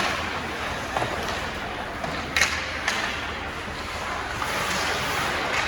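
Ice hockey play at a rink: a steady rush of skates on ice and arena noise, broken by a few sharp knocks of sticks and puck, the loudest about two and a half seconds in.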